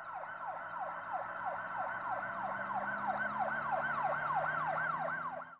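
Emergency-vehicle siren in a fast yelp, its pitch sweeping up and down about three times a second over a faint low hum. It cuts off abruptly at the end.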